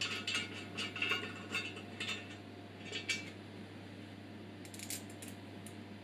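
Small metal parts of an angle grinder stand clicking and rattling against each other as they are handled and fitted, in a quick run for about three seconds, then a few lighter clicks near the end.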